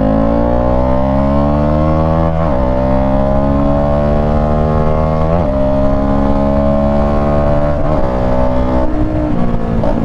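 FKM 3GP 300cc motorcycle engine, fitted with an aftermarket AR exhaust and no catalytic converter, accelerating hard under full throttle. The pitch climbs in each gear and drops at the upshifts, about two and a half seconds in, again about three seconds later, and once more near the end.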